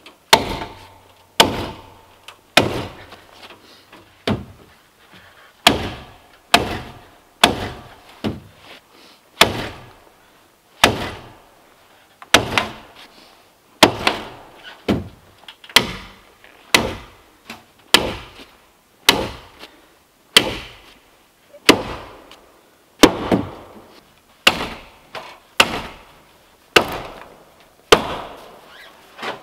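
Heavy hammer blows striking the cedar log wall, some thirty sharp knocks at about one a second with an uneven pace, each dying away quickly.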